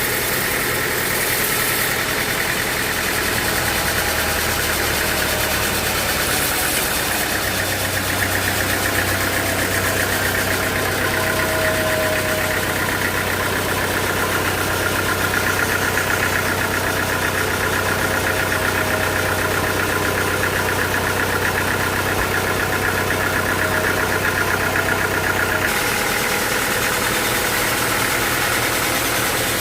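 Sawmill machinery running steadily with an engine-like hum. Its low hum rises slightly in pitch about seven seconds in and drops back near the end.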